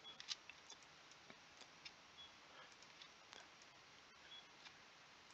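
Faint, irregular clicks of a computer mouse, its buttons and scroll wheel, over near silence as the map is zoomed and waypoints are dropped.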